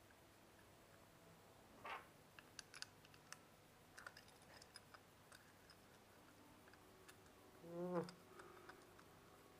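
Faint clicks and taps of a metal airsoft pistol magazine being handled while a 12-gram CO2 capsule is fitted into it. There is a short rub about two seconds in and a brief squeak about eight seconds in.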